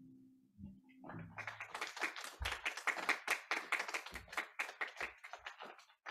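The last chord of a piano piece fades, then a small audience claps for about five seconds. The claps come thick and fast, and single claps stand out.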